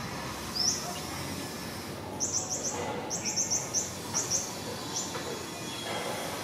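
Small bird chirping: short, high, rising chirps, one near the start and then a quick run of about a dozen from about two seconds in, over steady low background noise.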